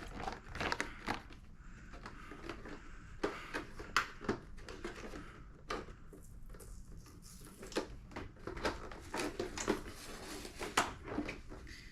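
Irregular small clicks, taps and rustles of objects being handled at close range, a few each second.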